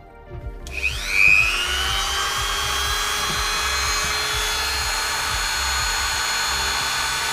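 Handheld rotary tool with a cut-off disc switched on about a second in, spinning up with a quickly rising whine and then running at a steady high-pitched whine.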